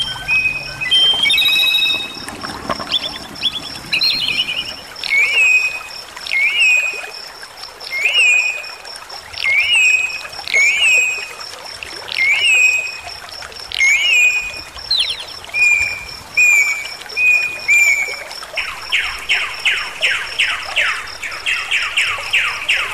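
Bali myna singing: a string of loud whistled notes, each rising then falling, about one every 0.7 s, then in the last few seconds a fast chattering run. Under it runs the steady rush of a stream.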